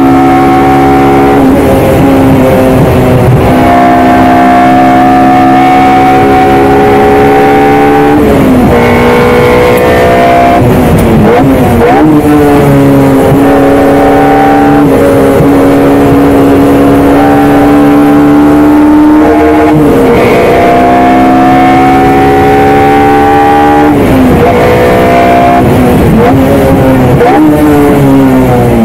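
Honda Civic FD2 Type R's K20A inline-four engine at high revs under hard acceleration on a race lap, heard from inside the cabin. The engine note climbs slowly for several seconds at a time, then drops sharply about seven or eight times as the driver shifts and lifts.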